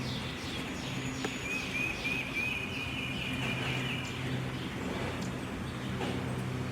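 Background ambience with a bird singing a quick run of short repeated chirps for a couple of seconds, over a steady low hum.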